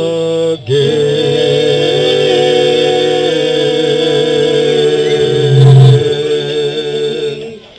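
Live band and singers holding the final chord at the end of a song, the sung last word "again" giving way to a long sustained chord that swells and then dies away just before the end.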